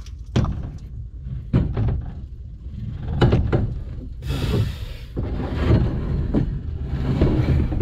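A canoe being lifted and slid onto a pickup truck's metal rack: a series of knocks and thumps as the hull hits the rack, with a longer scrape about four seconds in.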